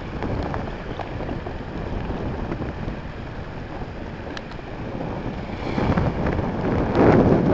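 Wind buffeting the camera microphone over choppy open water, a steady rushing that gusts louder near the end.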